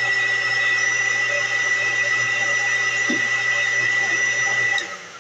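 Heat gun blowing steadily with a high whine and a low hum while softening plastic for bending, switched off abruptly near the end.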